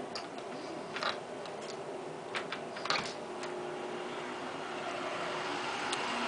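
Handling noise from a phone camera being carried and turned: a few scattered light clicks and knocks over a faint steady hum.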